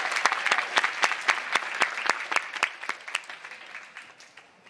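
Audience applause, the clapping thinning to scattered claps and fading away near the end.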